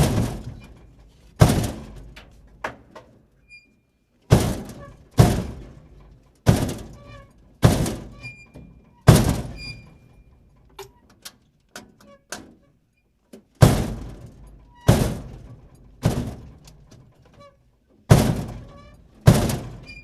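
Dumpster door slamming shut again and again, about a dozen heavy bangs at uneven intervals. Each bang rings and dies away over about a second, with a few lighter knocks and rattles between them.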